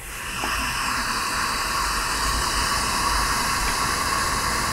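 Lampworking bench torch opened up from a tiny flame to a long, large one, its flame hissing steadily. The hiss swells within the first half second, then holds even.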